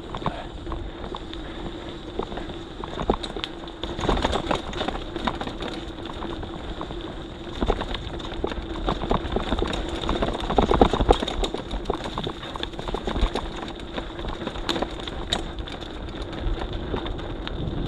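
Mountain bike riding down a rough dirt trail, rattling with many small knocks and clicks over the bumps over a steady hum. It gets rougher and louder about four seconds in and again around ten to eleven seconds.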